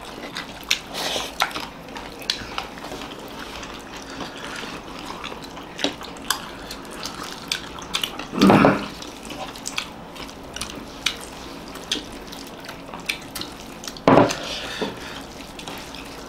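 Fingers squishing and mixing rice with egg curry on plates, with many small wet clicks, smacks and chewing sounds of eating by hand. Two louder, brief sounds come about halfway through and near the end.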